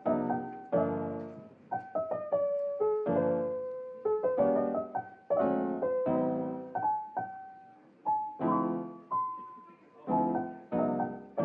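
Soft solo piano music: chords struck about once a second, each fading away, with single melody notes between them.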